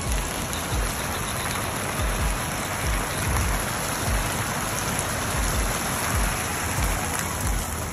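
Many thin jets of a fountain splashing steadily into a shallow pool, a dense, even hiss of falling water, with irregular low bumps about once or twice a second.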